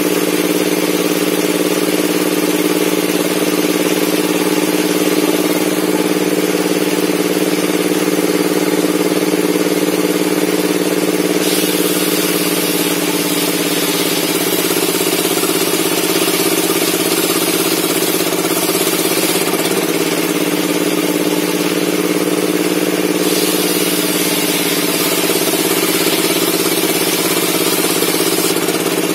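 Circular saw bench for ripping logs running steadily with a constant drone, while a harsher high hiss steps in several times, longest near the end, as the blade cuts through the wood.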